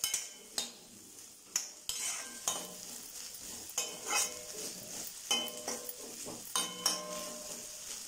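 Steel ladle stirring and scraping diced potatoes around a kadai in hot oil, in irregular strokes about one or two a second, over a light sizzle of frying.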